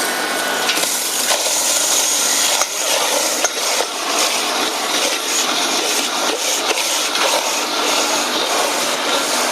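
Bone crusher machine running and crushing bone: a loud, steady grinding noise with irregular sharp cracks and crunches through it.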